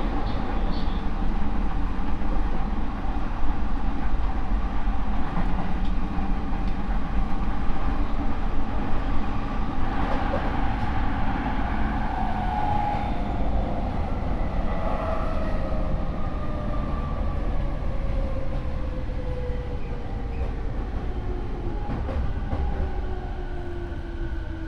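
Rinkai Line 70-000 series electric train with MT73 traction motors and a Mitsubishi IGBT inverter, running over a steady rumble of wheels on rail. From about halfway through, the motor and inverter whine falls steadily in pitch as the train slows under electric braking. This car's motors are noted as unusually loud.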